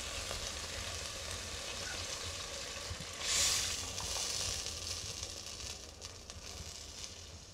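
Chicken pieces sizzling in a stainless steel pot. About three seconds in, orange juice mixed with mustard is poured in and the hiss surges, then fades gradually.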